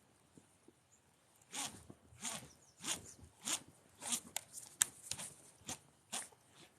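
Footsteps: a series of short crunching steps, roughly one every half second, starting about a second and a half in and stopping near the end.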